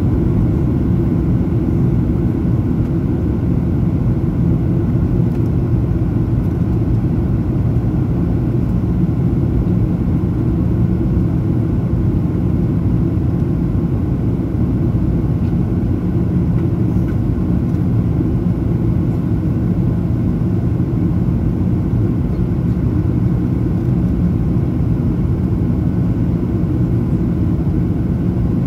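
Steady low rumble inside the cabin of a Boeing 737-900ER airliner in flight on approach: engine and airflow noise, unchanging throughout.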